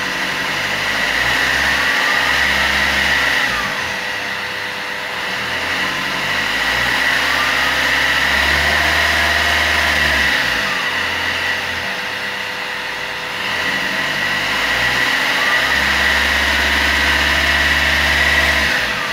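Opel Z13DTH 1.3-litre turbo-diesel four-cylinder heard at the tailpipe, revved up and held three times, dropping back toward idle in between. This is an exhaust-smoke check, and the exhaust is found clean.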